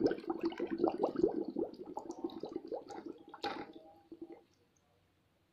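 Water sloshing and gurgling in a plastic bucket around a submerged Kiyosaki PSP2400 submersible pump as it is tried out, stopping abruptly about four and a half seconds in.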